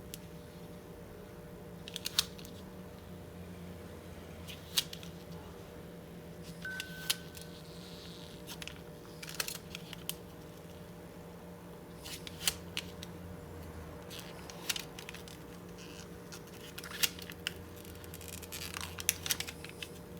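Polarizer film being peeled off a laptop LCD panel: sharp, irregular clicks and crackles every second or two, a quick cluster near the end, over a steady low hum.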